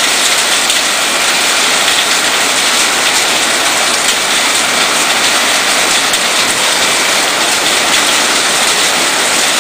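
Heavy rain and hail beating on a corrugated metal building, a steady, dense hiss and patter that does not let up.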